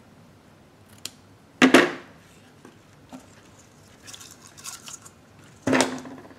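Scissors snipping thread and organza ribbon, with two loud sharp clacks, one about a second and a half in and one near the end, and light ribbon rustling between them.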